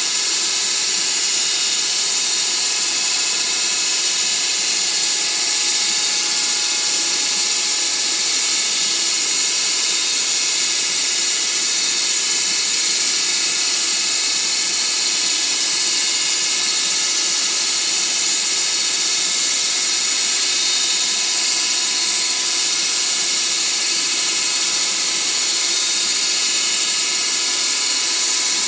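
Grizzly G0602 benchtop metal lathe running steadily under CNC control at a single speed. It gives a constant whine made of several steady tones over a strong hiss, with no change in pitch or level.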